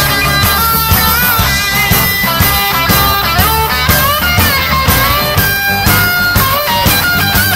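Live rock-and-roll band playing: an electric guitar line with bent notes over bass and a steady drum beat.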